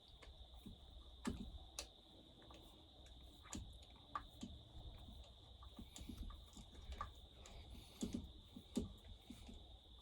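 Faint, irregular small clicks and taps of a hand tool working the fasteners as the chainsaw's new intake boot is tightened down, over a faint steady high-pitched whine.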